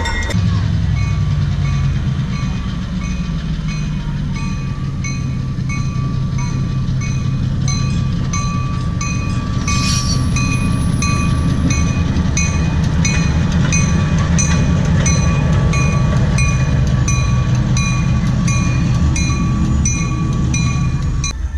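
Diesel locomotive engine running steadily as it moves through the yard. A bell rings evenly about twice a second, and a short hiss comes about halfway through.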